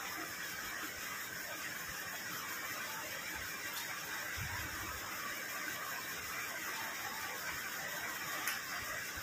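Steady, even hiss, with a brief low bump about four and a half seconds in.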